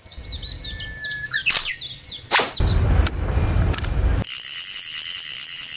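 Bird chirping, a quick series of short falling calls over the first two seconds. After that a low rumble comes in, and about four seconds in a steady high hiss with a held tone begins.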